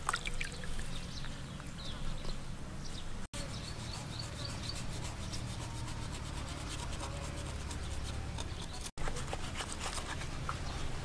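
Water dripping from a raw shark lifted out of a basin for the first few seconds, then a knife slicing and scraping shark meat on a wooden chopping board, soft rubbing sounds, over a low steady rumble.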